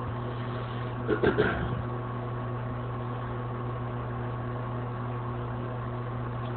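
A steady low hum, with a brief soft sound about a second in.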